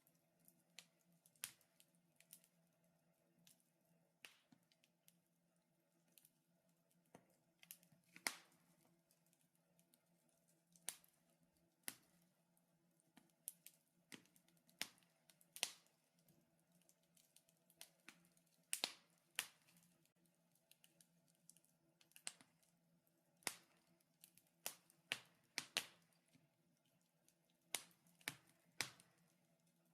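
Wood fire crackling in a fireplace: irregular sharp pops and snaps, some loud, over a faint steady hum.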